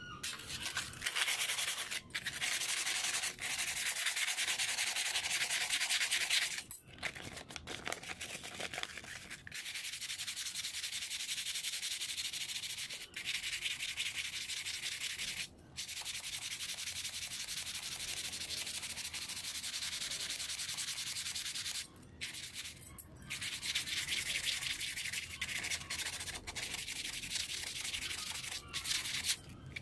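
A steel scissor blade being honed by hand on a round sharpening stone: a steady, hissing scrape of steel on stone, broken by brief pauses between runs of strokes.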